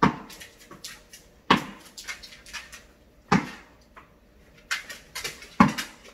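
A pet dog barking in single sharp barks, four times, while being teased with a tennis ball.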